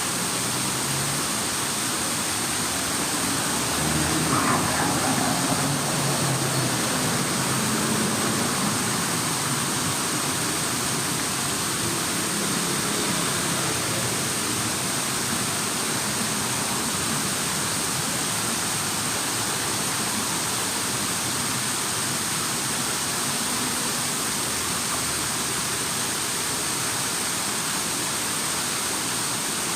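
Running water rushing steadily, with a brief louder swell and low rumble about four seconds in.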